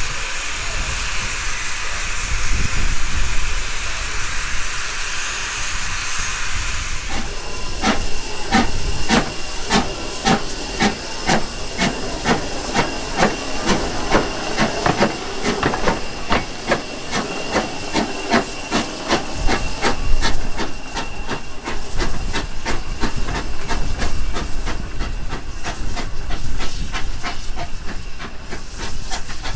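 Hunslet 0-6-0 saddle tank steam locomotive hissing loudly with steam billowing around its cylinders, then moving off about seven seconds in, its exhaust chuffing in a steady, regular beat over a continuing hiss.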